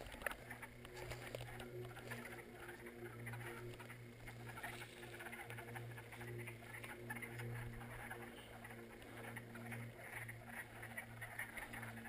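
A chorus of hundreds of frogs calling from a swamp pond, faint and steady: a continuous mass of overlapping calls with no break.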